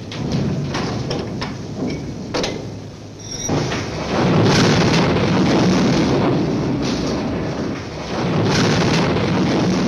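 Dumped oil shale rumbling and clattering as it pours down into a hopper. A few sharp knocks come first, then a loud continuous rumble sets in about three and a half seconds in, with a brief dip near the end.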